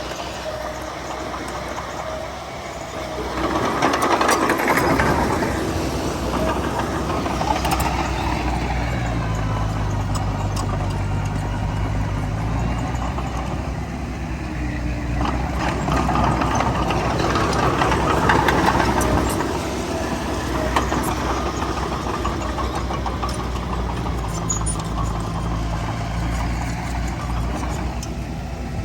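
Heavy diesel engine of earthmoving machinery working, growing louder twice as it labours, with a low engine hum underneath.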